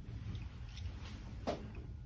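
Quiet room tone with a steady low hum, broken by one faint click about one and a half seconds in.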